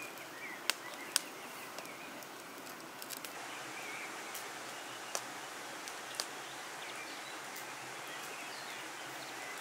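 Small wood-twig fire crackling with a few sharp pops over a steady outdoor hiss, with faint birds chirping.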